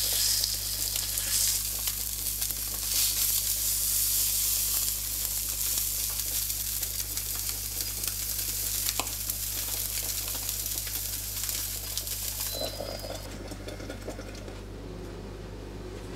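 Pork tenderloin searing in hot oil in a frying pan: a steady sizzle that stops about three quarters of the way through.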